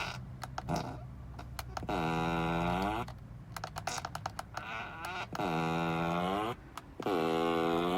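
Tesla Model 3 playing fart sound effects through its speakers: three long, pitched farts, each dipping in pitch and rising again, with bursts of short crackling clicks between them.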